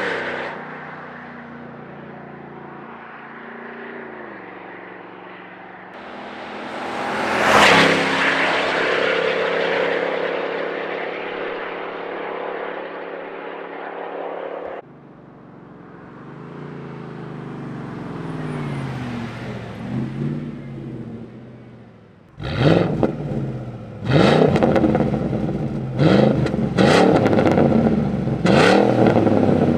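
Ford Raptor's 6.2-litre V8 through a valved-muffler exhaust with the resonator deleted, running as the truck drives past, loudest as it goes by about 7 seconds in. From about 22 seconds in, the parked engine is blipped in several quick, sharp revs.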